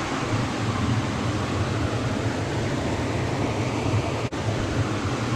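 Steady rush of water, an even noise with no speech over it, with a brief dropout about four seconds in.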